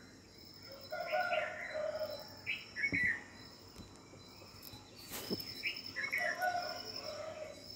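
Background birds calling: a short phrase of several notes, heard twice a few seconds apart, over a steady high insect buzz. A brief click comes about two-thirds of the way through.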